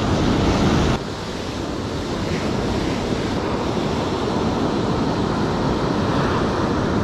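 Ocean surf washing up on a beach, with wind buffeting the microphone. Louder in the first second, it drops suddenly to a steady wash.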